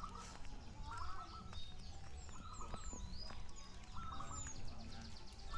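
Zebra doves (perkutut) cooing from many hanging cages: short staccato phrases that overlap and repeat about once a second. High, thin downward chirps from other birds sound above them.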